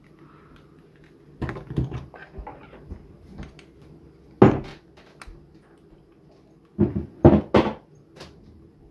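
Clicks and knocks of a screwdriver and a metal microphone body being handled at a wooden desk, in three short clusters, the loudest about halfway through.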